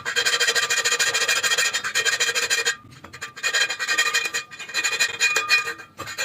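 Metal being filed or rubbed on a truck drive shaft, a harsh scraping with a steady metallic ringing, in two long spells with a short break about three seconds in.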